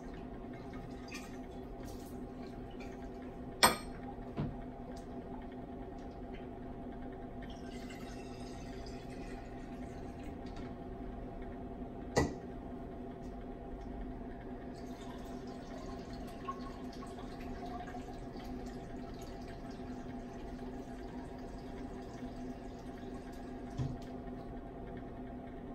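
Water running into a vessel for a couple of seconds, with two sharp clicks of handled labware, about four and twelve seconds in, over a steady hum; a fainter hiss of running water comes in from about fifteen seconds on.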